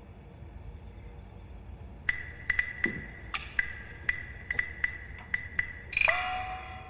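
Crickets chirping steadily. From about two seconds in, a dozen light, hard taps with a short ring, then a louder clatter near the end whose ringing tone drops, holds and fades.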